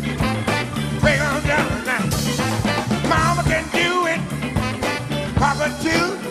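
Live funk band playing an instrumental groove with a steady beat: electric guitars, bass, drum kit and congas.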